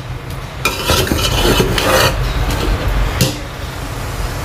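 Metal spoon stirring and scraping through cooked rice in a metal pot for a second or so, then a single clink of spoon on pot.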